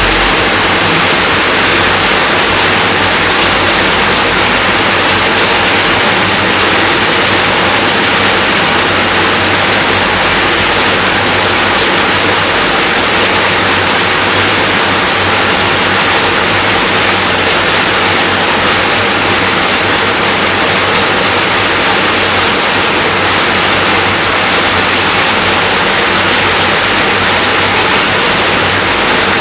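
Steady rainfall: a loud, dense, even hiss that does not change.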